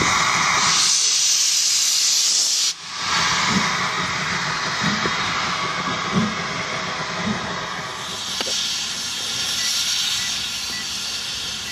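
GWR steam locomotive blowing off a loud hiss of steam that cuts off sharply about three seconds in, then a softer hiss with slow, spaced exhaust beats as it moves slowly. Near the end, a quieter steady rumble from an approaching modern passenger train.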